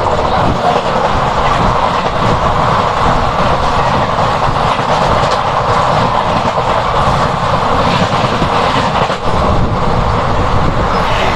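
Two trains crossing at speed: an oncoming express, hauled by an electric locomotive and drawing blue passenger coaches, rushes past close on the adjacent track, heard from the open door of a moving train. The clatter of wheels on the rails is steady and loud throughout.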